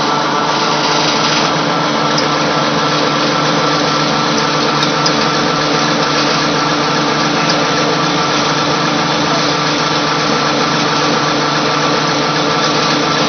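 Flat die pellet mill running steadily while making animal feed pellets: a loud, even mechanical drone with several held tones.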